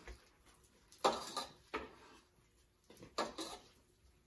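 Green papaya being shredded with a small grating machine: a few short scraping strokes about a second apart, with a pause in the middle.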